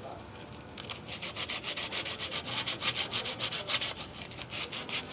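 Rapid back-and-forth hand scrubbing on the metal of a vehicle's rear leaf spring and axle mount, about five scratchy strokes a second. The strokes pause briefly at first and resume about a second in.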